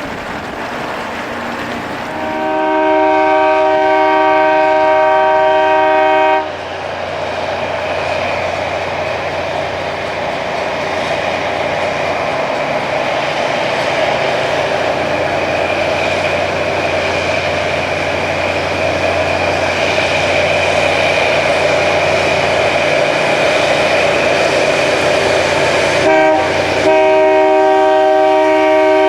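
Rail grinding train sounding its multi-tone horn in one long blast of about four seconds. A loud, steady, harsh grinding-and-rumbling noise of the train working past follows. Near the end the horn sounds again, a short toot and then a held blast.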